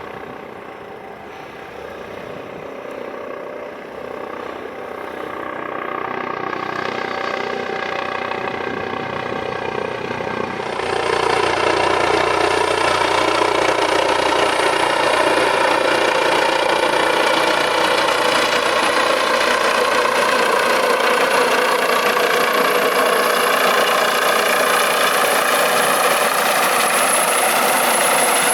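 Airbus Helicopters H155 (Eurocopter EC155B1) twin-turbine helicopter coming in to land, its engines and rotors growing louder. The sound jumps up about eleven seconds in and then holds loud and steady, with a high turbine whine over it.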